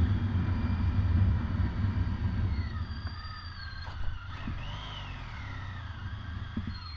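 Police motorcycle on the move: a heavy low rumble of engine and wind, loudest for the first two seconds and then easing off. Faint high tones glide slowly up and down above it.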